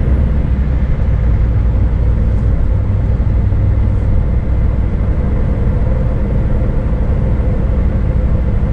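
Scania S500 truck's V8 diesel running steadily at cruising speed, a constant low drone mixed with road and tyre noise, heard from inside the cab.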